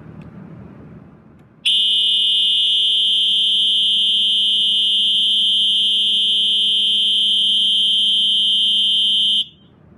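Space Age Electronics HA24D fire alarm horn sounding a steady, continuous high-pitched electronic tone for about eight seconds, starting about two seconds in and cutting off suddenly near the end.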